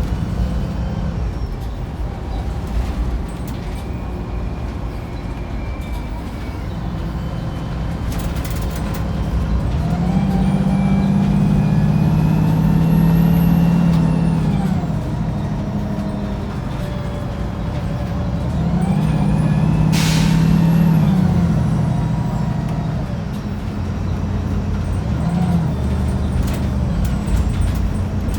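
Wright Pulsar 2 single-deck bus heard from on board, its diesel engine and driveline working hard, the note and a high whine rising and falling twice as it pulls away and accelerates. About twenty seconds in, a short sharp hiss of air, the air-brake sneeze.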